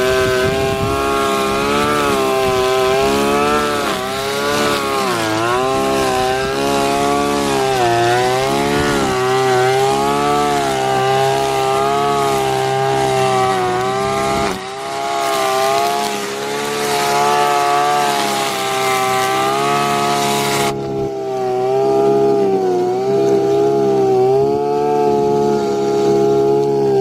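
Two-stroke engine of a KOBUTA brush cutter running at high revs. Its pitch dips and recovers again and again as the blade takes load in the grass. About twenty-one seconds in the sound turns suddenly duller, losing its hiss, while the engine note carries on.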